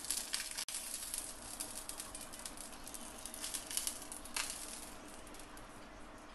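Tomatoes searing in hot oil in a pan: a steady sizzle with irregular crackling spits.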